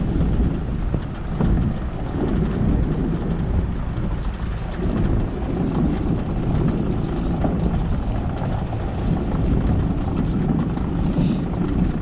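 Wind buffeting the camera's microphone: a loud, rough low rumble that keeps surging and easing without a break.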